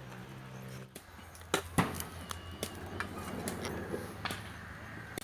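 Pieces of firewood knocking together as they are handled and dropped: two loud sharp knocks about a second and a half in, then lighter wooden clacks. A low steady hum runs underneath.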